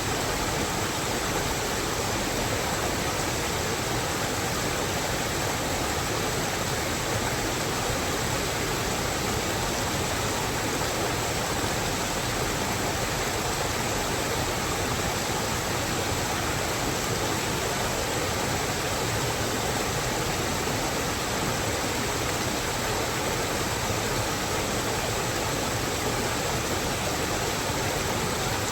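Rain falling steadily in a forest, an even, unbroken hiss.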